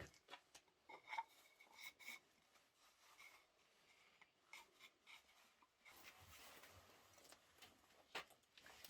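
Faint, scattered light taps and clicks of wood being handled, then from about six seconds in a soft, faint rubbing of wood.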